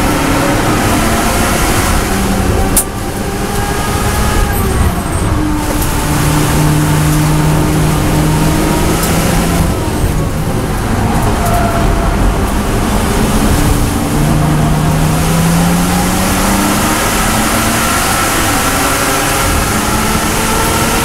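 BMW M240i Racing Cup car's turbocharged straight-six heard from inside the cockpit, its pitch rising under throttle, dropping away under braking and climbing again. About three seconds in, a sharp click and a brief dip in level come with a shift up a gear. Heavy cabin, tyre and wind noise throughout.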